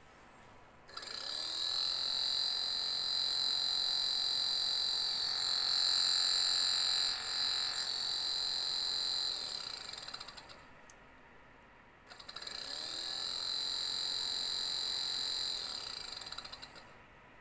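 Suzuki MH34S radiator cooling-fan electric motor, run twice: each time it spins up with a rising whine, runs steadily for several seconds, then winds down with a falling whine. Its hum is the noise the title blames on a worn fan motor.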